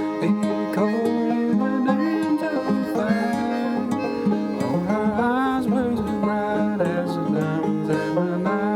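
Bluegrass music with banjo picking and sliding string notes, played without singing.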